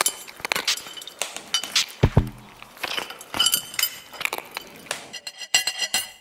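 A rapid, irregular series of light clinks and ticks, some with a brief ringing.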